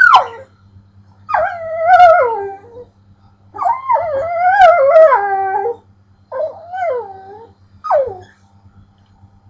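Pit bull making odd howling, whining vocalizations: five wavering, pitched calls. The first and last are short and drop in pitch; the three between are longer, wobbling up and down before sliding down at the end.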